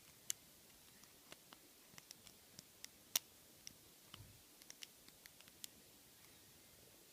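Faint, irregular metallic clicks and ticks of a short hook pick and tension wrench working the pin stack inside an ABUS 85/50 padlock. Two clicks stand out, one just after the start and one about three seconds in, with a soft low thump just after four seconds. The clicking stops about two thirds of the way through.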